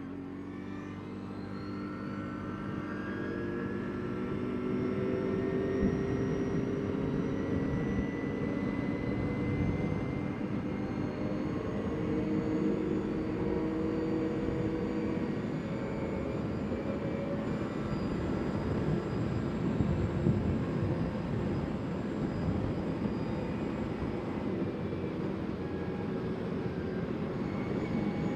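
CFMoto CForce 800 ATV's V-twin engine pulling and rising in pitch over the first few seconds, then running steadily at cruising speed while riding.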